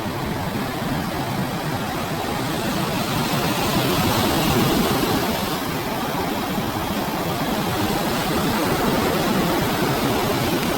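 Ocean surf breaking and washing onto the beach: a steady rush of water that swells a little about four seconds in and again near nine seconds.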